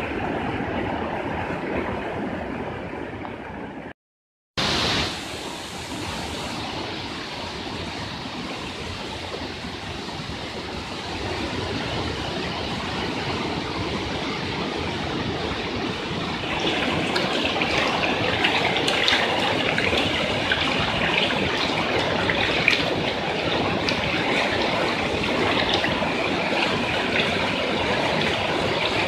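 Floodwater rushing through a street in a steady, noisy torrent, broken by a brief silent gap about four seconds in; past the middle the rush grows louder and hissier.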